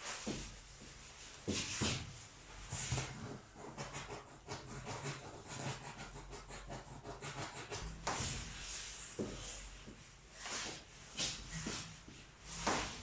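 Hands rubbing over skin and clothing during neck massage and manipulation: soft continuous rustling broken by louder brushing strokes every few seconds.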